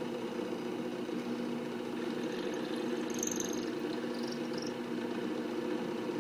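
Ryobi benchtop drill press running with a steady motor hum while its bit is fed down into a dental stone cast, drilling a guide hole for an implant surgical guide.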